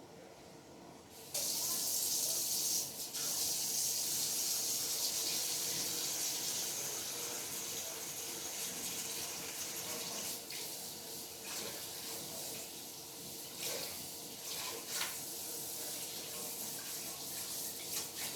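Kitchen sink faucet turned on about a second in, water running steadily into the sink while hands are washed, the stream changing briefly now and then as the hands move under it.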